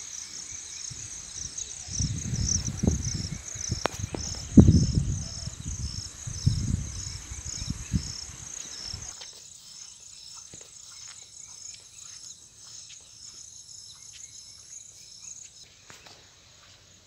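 An insect chirps in a steady, evenly spaced high pulse. Low rumbling gusts of wind noise on the microphone come and go between about two and nine seconds in, and they are the loudest sound.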